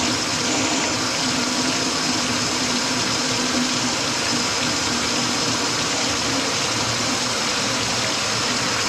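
Kitchen faucet running at full flow into a stainless steel sink, a steady rush of water with a low hum in it. The sink's drain line is plugged with grease, so the water backs up instead of draining.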